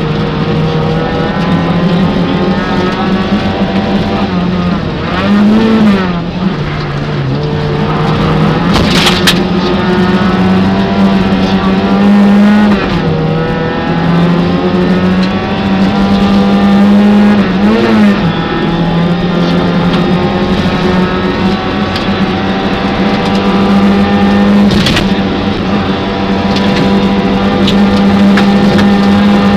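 Peugeot 205 rally car's engine heard from inside the cabin, driven hard on a snowy special stage. The engine note is held high, dipping and rising quickly at gear changes around six and eighteen seconds in, with a couple of sharp knocks about nine seconds in and near the end.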